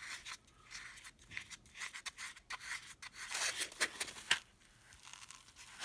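Hex bit socket set and its bit carousel being handled and worked on and off: rubbing and scraping with a run of small sharp clicks, dying down near the end.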